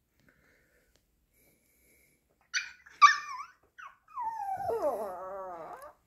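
Pomeranian giving two sharp high yelps, then a long wavering wolf-like cry that slides down in pitch: separation distress at being left home alone.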